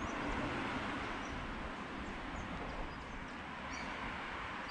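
Steady outdoor background hiss with faint, high bird chirps here and there.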